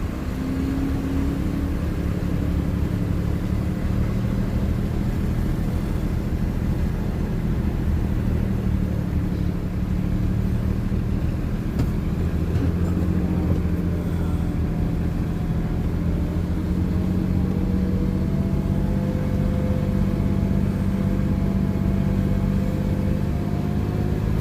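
A vehicle engine running steadily and continuously, its pitch rising slowly over the second half.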